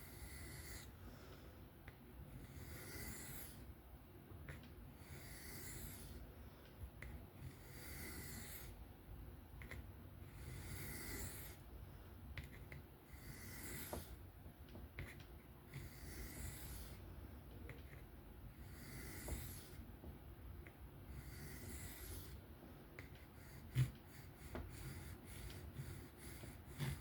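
Knife blade drawn across a 1200-grit sharpening stone in slow freehand strokes, a quiet scrape about every two seconds. One sharp knock near the end.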